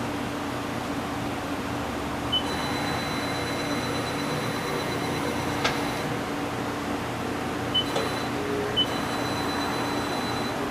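Mori Seiki MV-Junior vertical machining center running under power: a steady hum, with a high-pitched whine from about two to six seconds in and again near the end, each whine starting with a short chirp, and a couple of sharp clicks in between.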